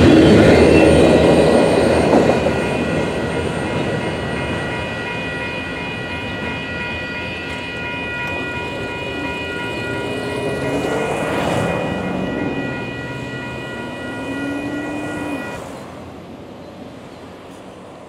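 Freight train's flatcars rolling past, the wheels rumbling loudly for about two seconds before the train recedes and the sound fades. A grade-crossing bell rings steadily and stops a few seconds before the end.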